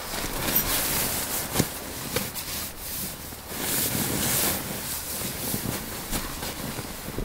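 Sleeping bag and tent fabric rustling and swishing in uneven bursts as a person shifts and turns inside the bag, with a few small sharp clicks.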